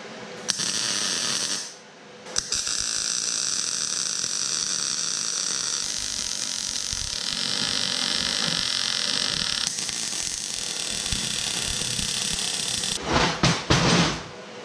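Electric arc welder welding a steel tube onto a flat steel plate, giving the crackling hiss of the arc. A short first burst is followed by a brief pause, then a long continuous bead of about ten seconds, and a few short loud bursts near the end.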